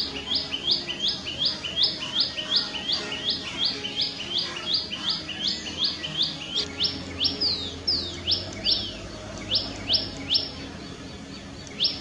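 Common tailorbird calling: a rapid series of sharp, loud, high repeated notes, about three or four a second. After about six seconds the notes slow and come more sparsely, with one last note near the end.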